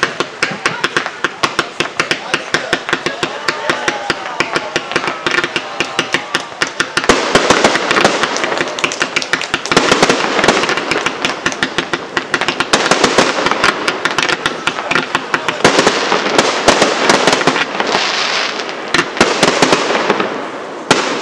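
Aerial fireworks display: a dense, rapid crackling of many small bursts, with louder bursts swelling in about 7, 10, 16 and 19 seconds in.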